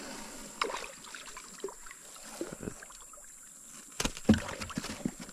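Scattered light knocks and clicks of fishing gear being handled, with a cluster of louder thumps about four seconds in.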